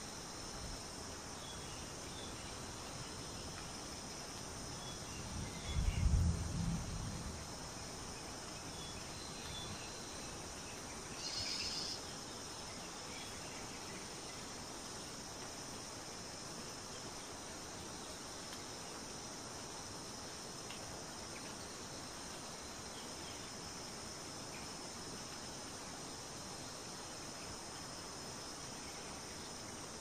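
Forest ambience of steady insect chirring with scattered faint chirps. About six seconds in there is a brief low rumble, the loudest sound, and near twelve seconds a short high-pitched sound.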